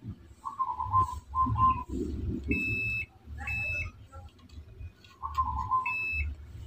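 Digital multimeter's continuity buzzer giving three short high beeps as its probes make contact between the power transistor's metal body and a leg, a beep signalling that the leg is connected to the body. Lower wavering tones and small probe clicks come in between.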